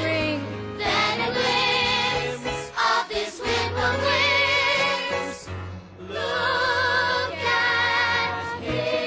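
Children's stage chorus singing long held notes with vibrato over a musical accompaniment, in a few sustained phrases with short breaks between them.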